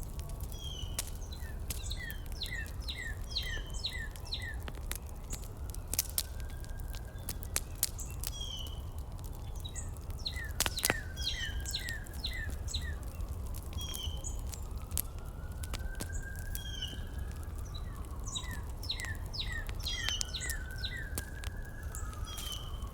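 Small birds chirping in repeated runs of quick falling notes, over a steady low rumble with scattered sharp clicks.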